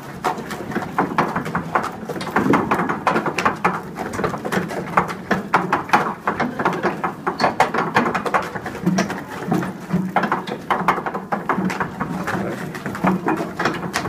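Hand-worked flywheel apple mill crushing apples: a dense, unbroken clatter of crunching and knocking.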